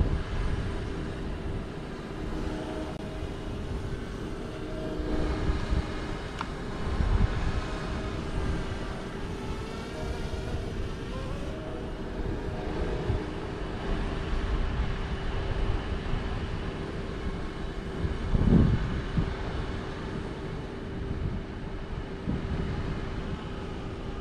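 Steady outdoor rumble with the distant hum of a DJI Mavic Mini drone in flight, its pitch shifting a little now and then. Two louder low thumps come through, about a third of the way in and again about three-quarters of the way in.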